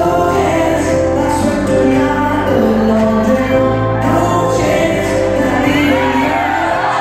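Recorded song with a singer, playing over a ballroom's sound system.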